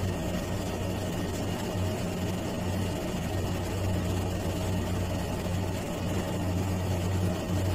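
Steady low machine hum with a faint hiss, holding one pitch throughout with no change.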